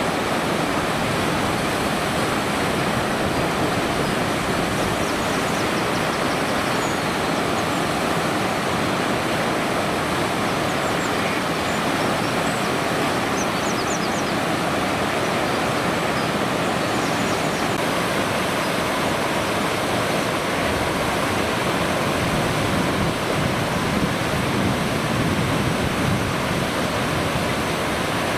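Steady rush of flowing river water, an even unbroken noise, with a few faint high chirps in the first half or so.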